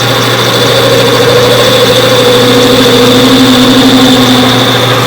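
Chinese-made metal lathe running at 755 RPM with a steady motor hum, its tool taking a 15-thousandths cut on a bucket pin. About two seconds in, higher singing tones come in over the hum and ease off near the end.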